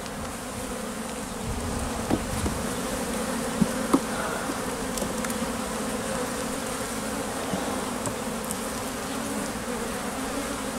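Honeybees buzzing steadily around an opened hive, one even hum, with a few light knocks about two and four seconds in.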